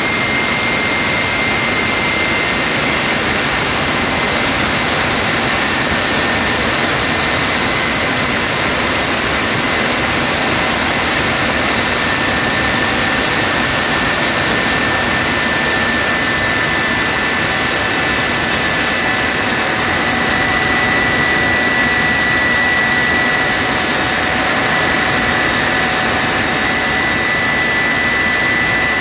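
Rolls-Royce/Snecma Olympus 593 turbojet, Concorde's engine, running steadily: a loud, even jet rush with a high whine that wavers a little in pitch.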